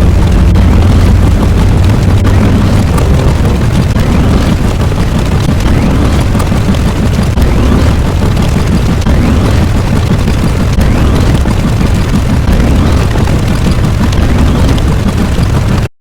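A sustained, loud, explosion-like rumble sound effect, heaviest in the low end, that cuts off suddenly near the end.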